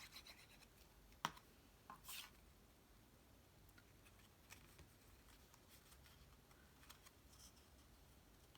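Near silence with faint handling of card-stock pieces: a sharp light tap about a second in, a couple of soft taps just after, then scattered faint ticks.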